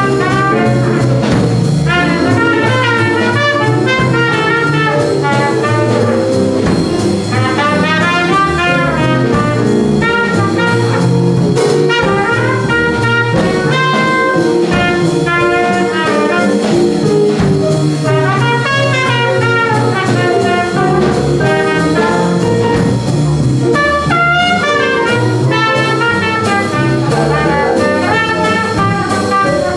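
Small jazz band playing live, the trumpet carrying the melody over clarinet, guitar, keyboard, double bass and drums.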